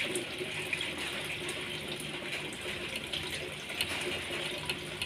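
Aquarium water trickling and splashing steadily, as from a filter return falling into the tank, with a faint low hum underneath.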